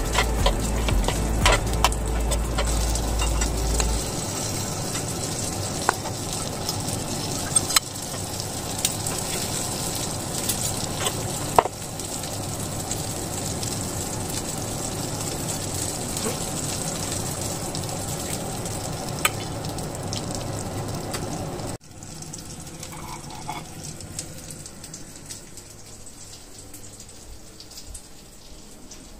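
Food sizzling as it fries in a pan, with scattered sharp clicks of a utensil against the pan. A low hum stops about four seconds in, and the sizzle drops quieter for the last several seconds.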